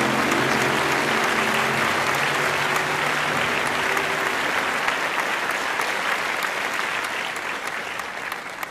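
Applause, a dense patter of many hands clapping, slowly fading out near the end. A low steady hum sits under it for the first few seconds and dies away.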